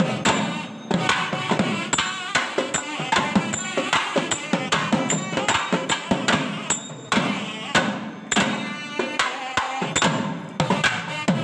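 Tamil temple festival drumming: thavil drums playing a fast, dense rhythm of sharp strokes, with a thin high metallic ring recurring over it.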